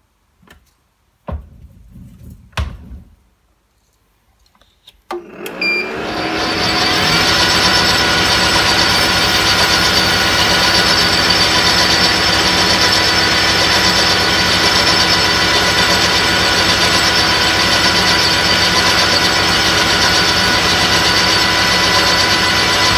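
A few knocks and clicks from handling the metal lathe, then about five seconds in the lathe motor switches on and runs up to speed. It settles into a steady running hum with gear whine as the chuck spins the end mill.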